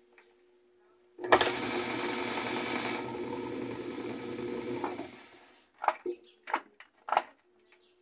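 General Electric washing machine's motor driving the transmission through the belt and pulley on the spin cycle. It starts abruptly about a second in with a clatter, runs with a steady rattling whir for about four seconds, then winds down. A few sharp knocks follow near the end, over a faint steady hum.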